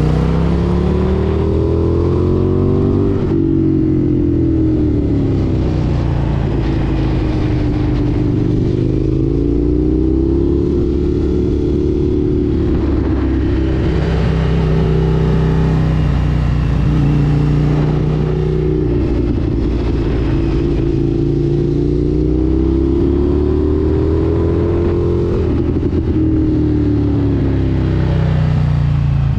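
Indian FTR 1200 S V-twin motorcycle engine under way, its note rising and falling again and again as the throttle opens and closes. The pitch drops sharply a few seconds in and again near the end.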